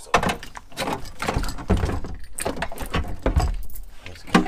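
Knocks, clunks and scraping of a heavy car battery's plastic case being handled and lowered into its compartment by its handles, with a sharp knock near the end.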